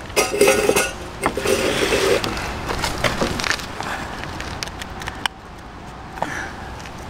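Tin can and aluminium baking tray handled on a wooden table: two scraping sounds in the first two seconds, then scattered light clicks and knocks as the tray is picked up.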